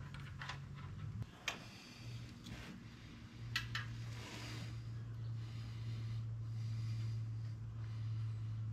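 A few sharp clicks and taps of hand tools on the engine while a wire clamp is taken off, over a steady low hum that gets a little louder a few seconds in.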